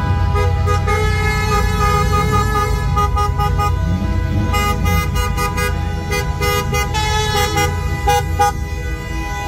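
Several car horns honking over the rumble of slow-moving cars: one horn held steadily, with quick short toots coming thick and fast from about halfway through.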